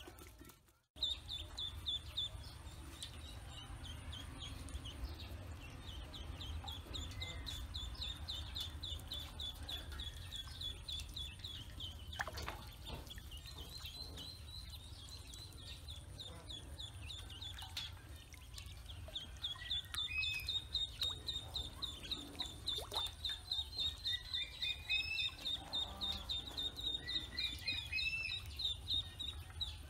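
A brood of ducklings peeping constantly, many rapid high peeps running together. The sound drops out briefly about a second in. From about two-thirds through the peeping gets louder and more rhythmic, joined by rising two-note calls.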